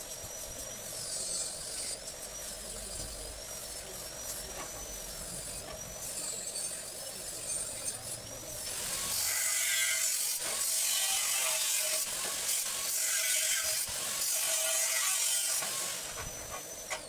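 Angle grinder with a cut-off disc cutting through a square metal tube. It runs loud and steady from a little under halfway through and stops shortly before the end. Before the cut there is only a quieter steady background hum.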